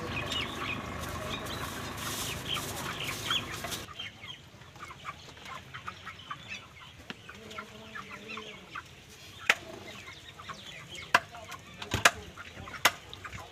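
Penned live chickens clucking. The clucking is busiest and loudest for the first few seconds, then a handful of sharp knocks come near the end as chicken is cut on a metal-topped table.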